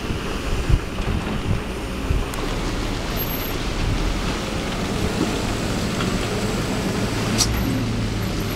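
Kobelco SK200 hydraulic excavator working, its diesel engine a steady low drone under a rough rushing, rumbling noise. A few low thumps come in the first two seconds.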